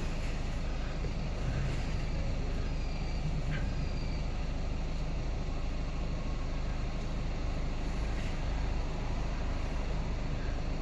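Steady low rumble, like an engine or traffic, with a faint click about three and a half seconds in.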